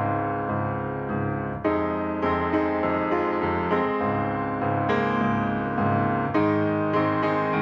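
Background piano music: a slow run of sustained notes over a steady low accompaniment.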